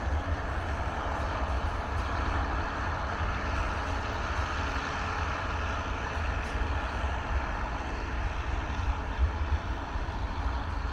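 Steady rumble of a long container freight train rolling away along the track, its wagons running on the rails.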